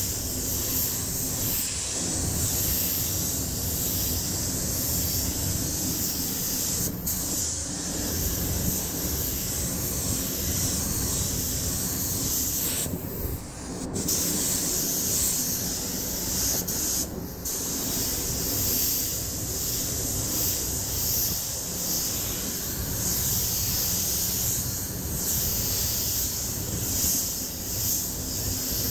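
Compressed-air spray gun hissing steadily as paint is sprayed, with the trigger released twice briefly, about halfway through and again a few seconds later.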